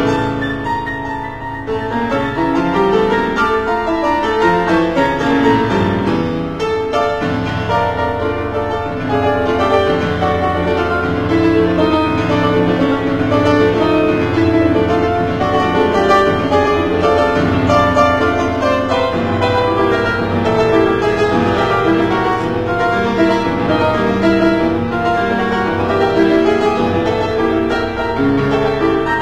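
Grand piano playing a continuous piece, a melody over sustained chords with no pauses.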